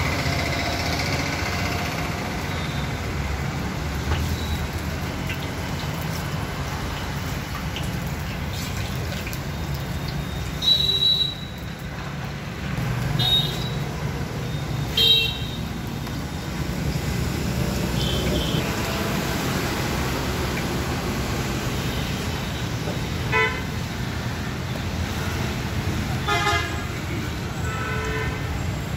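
Steady street traffic noise with several short vehicle horn honks: three louder ones around the middle and a few more near the end.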